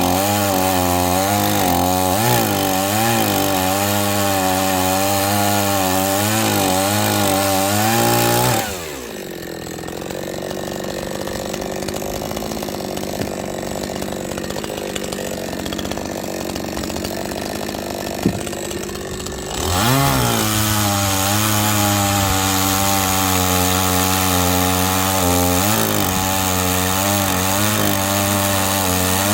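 Chainsaw running at high revs, its pitch dipping and recovering as it cuts through firewood. About eight seconds in it drops back to idle for roughly eleven seconds, with a single sharp click near the end of the idle, then revs up and cuts again.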